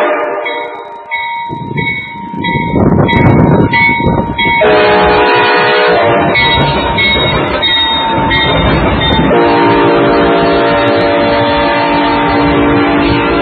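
Train passing close by with its locomotive horn sounding in several blasts, the last one long. A loud rush of the moving train fills the gap between the early blasts.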